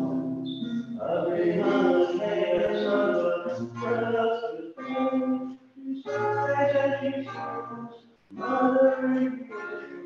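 A group of voices singing a hymn in held phrases with short breaks between them, accompanied by an acoustic guitar.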